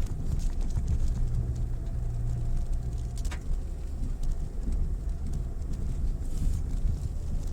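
Mitsubishi Pajero Mini kei 4WD driving slowly on a rough forest track: a steady low engine and road rumble with a hum that holds for a couple of seconds, and a few light ticks, with a short high-pitched sound about three seconds in.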